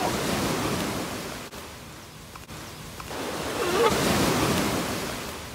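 Surf washing on the beach, rising and falling in two swells, with a brief cry about four seconds in.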